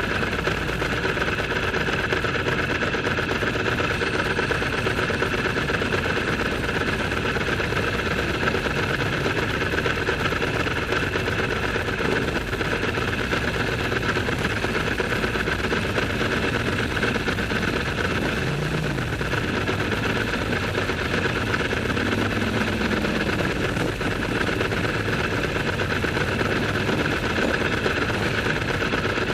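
Ducati motorcycle engines running steadily, with no revving, their sound echoing in a tunnel.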